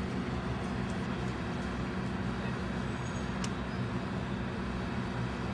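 Steady low mechanical hum and rumble of outdoor background noise, like distant traffic or machinery, with one short sharp tick about three and a half seconds in.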